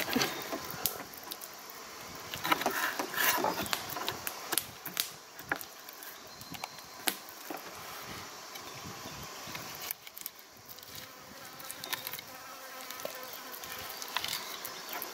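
Knife slicing a trout fillet away from the rib bones on a wooden cutting board, giving irregular light scrapes and ticks, over a steady insect buzz.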